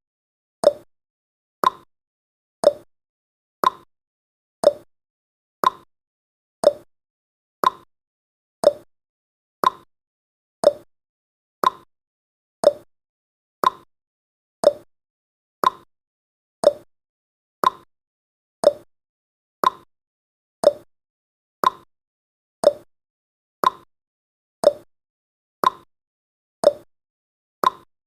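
Clock ticking sound effect, one sharp tick each second, the ticks alternating slightly higher and lower in pitch like a tick-tock, marking the seconds of a countdown timer.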